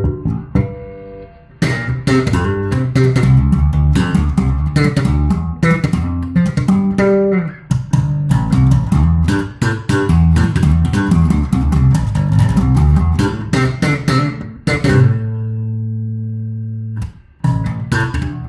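Luthier-built Fodera-copy electric bass guitar played solo: a quick, busy run of notes with sharp attacks, then a single held note ringing for about two seconds before it is stopped, and the playing picks up again near the end.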